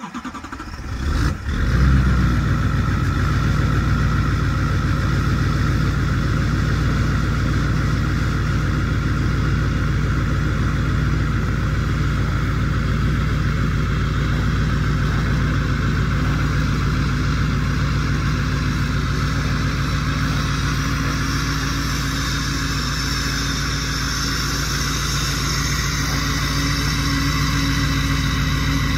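Emissions-deleted Duramax LML 6.6-litre V8 turbo-diesel catching on a cold start at −34 °F, about a second and a half in, after two days sitting. It then settles into a loud, steady cold idle.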